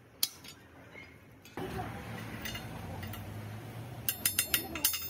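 A single sharp hammer blow on steel. About a second and a half in, a steady low hum sets in. From about four seconds in comes a quick run of sharp metallic clinks as a hand tool works at a pin between the rollers of a steel excavator track.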